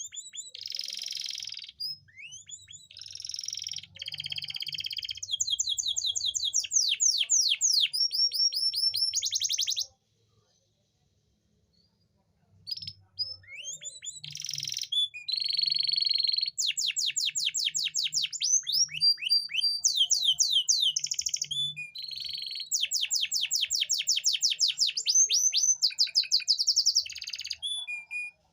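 Male domestic canary singing: fast rolling trills of repeated falling notes and buzzy rolls, with a short pause partway through. This is the courtship song used to bring hesitant female canaries into breeding condition.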